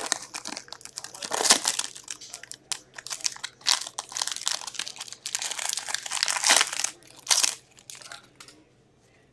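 Foil wrapper of a Metal Universe hockey card pack crinkling in the hands as it is opened and the cards are pulled out, in irregular crackly bursts that die away in the last second.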